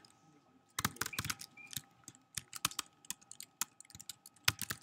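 Typing on a computer keyboard: irregular, quick keystroke clicks, starting about a second in.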